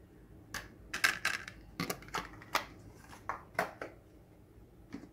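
Light clicks and knocks of kitchen utensils and containers being handled, about ten at irregular intervals, then quieter near the end.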